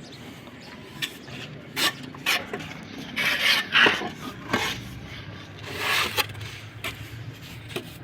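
Hand tools scraping and knocking on hard surfaces during tile-floor work, in irregular strokes. The longest and loudest scrapes come about three to four seconds in and again near six seconds.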